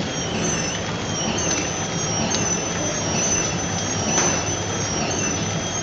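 Horizontal flow-wrap sweet packing machine running steadily: a continuous mechanical hum with high whining tones that step up and down in pitch, and a few faint ticks.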